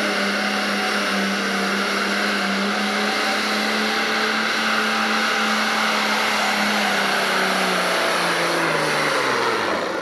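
Pro stock pulling tractor's diesel engine running flat out at high revs under full load as it pulls the weight-transfer sled, holding a steady pitch. About two seconds before the end the pitch falls as the engine winds down and the tractor stops at the end of its pull.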